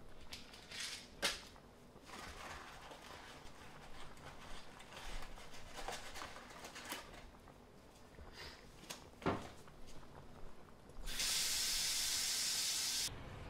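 Kitchen counter handling sounds: water poured into a ceramic mug at the start, then a pill bottle being handled and opened, with two sharp knocks, one about a second in and another about nine seconds in. Near the end a steady hiss cuts in for about two seconds and stops abruptly.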